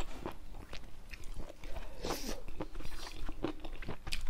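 A person chewing a mouthful of rice and mushroom curry close to the microphone: a run of short, sharp mouth clicks, with a louder noisy burst about two seconds in.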